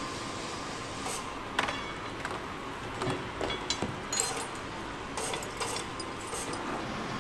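Metal parts clinking and knocking lightly, a dozen or so scattered clinks, over the steady hum of factory machinery.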